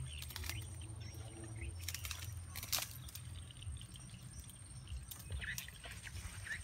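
Dry mangrove twigs and branches crackling and snapping as they are pulled aside by hand: a scattering of sharp cracks at uneven intervals over a low steady rumble.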